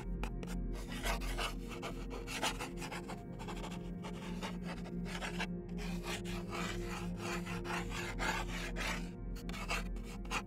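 Pencil scratching on paper: many quick, irregular shading strokes.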